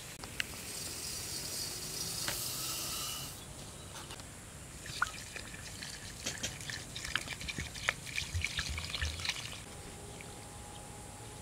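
Liquid being poured for about three seconds, then a run of small splashes, drips and clicks that stops near the end.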